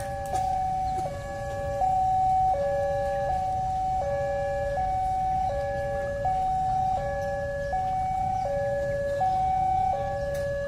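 Railway level-crossing warning sirens sounding a steady two-tone alarm, switching back and forth between a higher and a lower tone about every three-quarters of a second, over a low background rumble.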